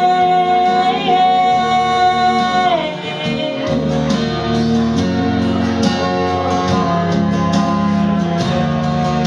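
Live country band: a long held note that slides down about three seconds in, then an instrumental break of guitar, bass and drums with a steady beat.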